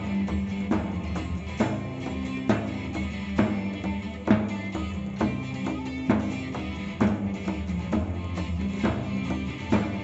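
Celtic folk band playing an instrumental break, with a drum kit keeping a steady beat: a strong hit about every second and lighter hits between.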